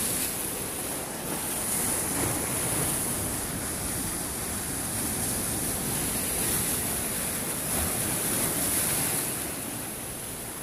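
Sea surf breaking and washing over the rocks of a breakwater: a steady rush of waves, easing a little near the end.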